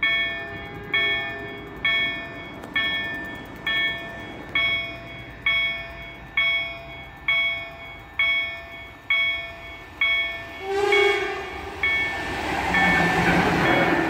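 Level crossing warning bell ringing about once a second while a Siemens Vectron electric locomotive approaches. About 11 seconds in it sounds a short horn blast, and then the rumble of the locomotive and its wheels on the rails builds as it reaches the crossing near the end.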